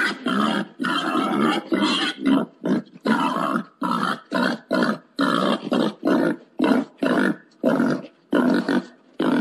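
Wild boar mating call: a steady run of short, rough grunts, about two a second, the kind of call played to lure boars during the mating season.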